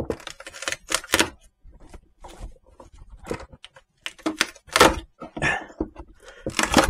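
Irregular sharp knocks and scraping of a screwdriver levering at a nailed-on wooden drawer front to prise it off.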